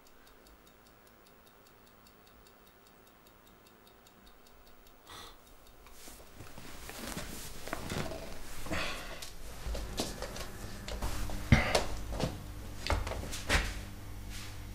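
A clock ticking faintly and steadily, then from about halfway in louder rustling with irregular knocks and thuds. A steady low hum comes in near the end.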